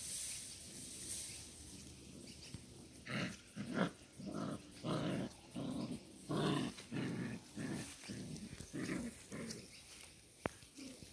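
Seven-week-old Doberman puppies growling in play fighting: a run of short growls, roughly two a second, starting about three seconds in and tailing off near the end, after a hissing rustle at the start.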